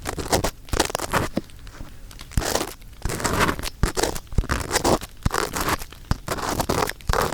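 Ear pick scraping and rubbing inside the silicone ear of a 3Dio binaural microphone, very close, in irregular rough strokes broken by many sharp clicks.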